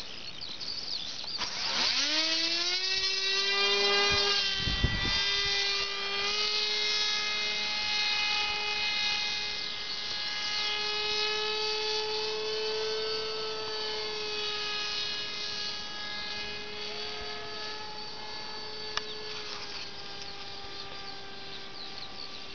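Battery-powered electric motor and pusher propeller of a foam RC model plane throttling up about a second and a half in with a quickly rising whine. It then settles into a steady propeller drone that wavers slightly in pitch and grows slowly fainter as the plane flies away.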